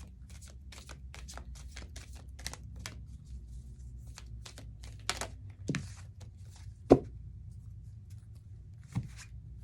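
A deck of tarot or oracle cards being shuffled by hand, a quick run of crisp snaps, about three or four a second. It is followed by a few knocks as cards are handled and set down, with one sharp knock about 7 seconds in.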